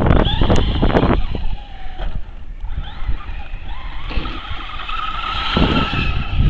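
Electric RC car motors whining as the cars run around the track, with a thin whine rising in about four seconds in and wavering with the throttle, over a low rumble.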